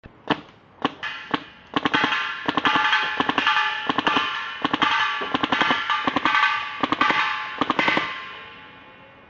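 P90-style paintball marker, converted from an airsoft shell, firing: three single shots about half a second apart, then rapid strings of shots in quick bursts for about six seconds. A steady ringing tone sounds under the rapid fire and fades away after the last shot.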